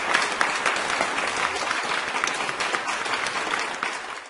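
Applause, many hands clapping, fading out near the end.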